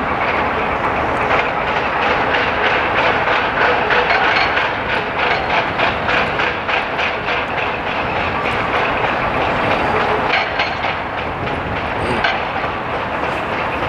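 Loud, steady mechanical rattling with a fast, dense clatter running through it.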